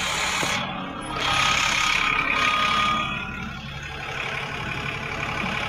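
Dennis Trident double-decker bus engine running steadily, with a louder rush of noise from about a second in that eases off after a couple of seconds.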